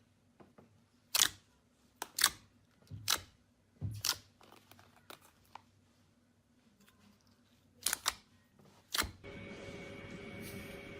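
Slime being pressed and poked, giving short crisp pops and clicks at irregular intervals, around a dozen with a quiet gap in the middle. A faint steady hum comes in near the end.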